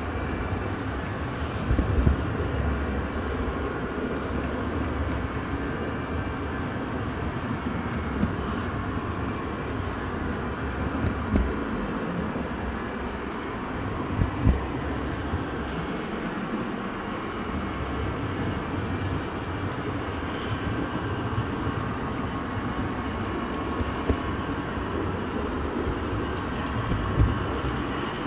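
Train running: a steady rumble with a few short, low knocks.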